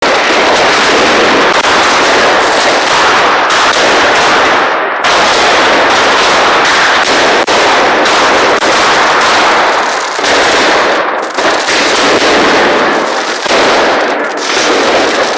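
Fireworks and firecrackers going off all around in a dense, loud, almost unbroken crackle of rapid overlapping bangs, like machine-gun fire.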